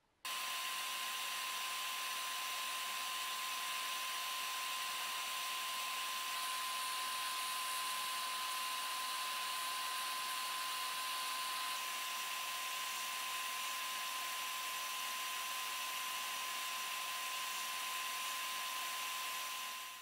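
Sandblasting gun in a blast cabinet spraying glass beads with compressed air at about 80 psi onto a Zippo lighter insert, stripping the plating to bare brass. A steady hiss with a thin steady whistle through it, starting abruptly and cutting off at the end.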